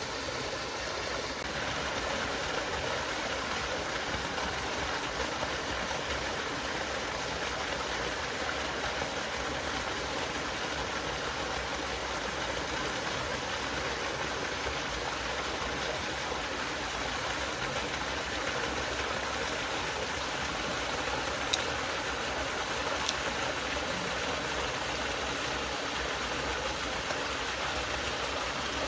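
Steady rushing of a flowing stream. Two brief sharp clicks about a second and a half apart come about two-thirds of the way through.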